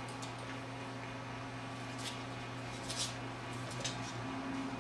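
A few short, faint scratchy rustles, the loudest about three seconds in, as a beagle puppy and a golden retriever wrestle on a hardwood floor, over a steady low electrical hum.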